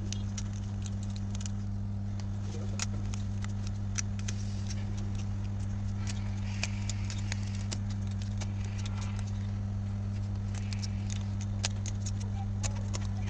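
Steady low electrical hum with scattered light clicks and taps of small hard objects.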